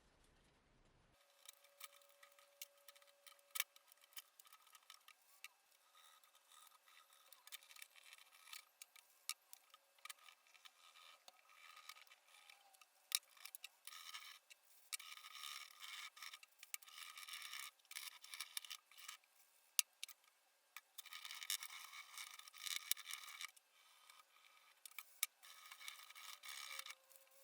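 Faint scraping and rubbing in patches, with scattered sharp clicks, and the sound thin with no low end.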